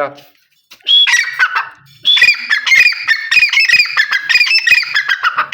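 Caged male teetar (francolin) giving its loud call: a fast run of shrill, repeated notes that starts about a second in, breaks off briefly, then carries on.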